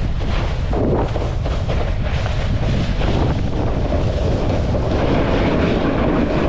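Wind buffeting an action camera's microphone: a loud, steady rushing noise with a heavy low rumble.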